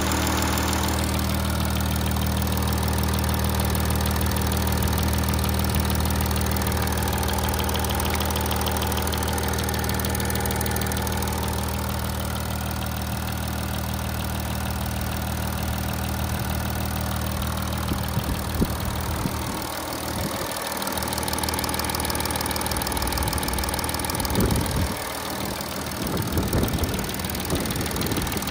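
Audi 3.0 TDI V6 diesel engine (code DDV, 210 kW) idling steadily, making the engine noise the workshop traces to excess play between the camshaft sprockets. A few short knocks near the end.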